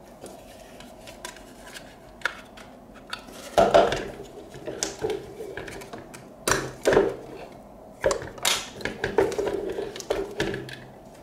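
Small hard plastic toy pieces and packaging being handled, with irregular clicks, knocks and clatter.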